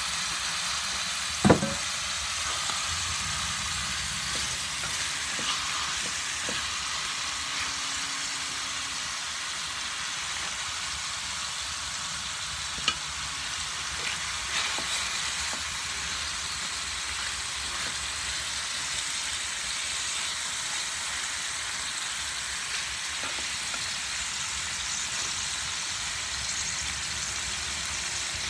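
Chicken drumsticks sizzling steadily in hot oil in an electric skillet, with a few sharp knocks against the pan, the loudest about a second and a half in.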